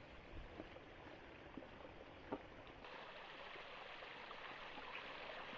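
Faint outdoor ambience: a steady soft rushing, like moving water or wind, with a few light clicks. The rushing grows a little stronger about three seconds in.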